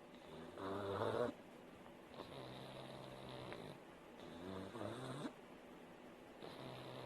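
Pug snoring in its sleep: one snoring breath about every two seconds, the loudest about a second in, and one near the five-second mark rising in pitch at its end.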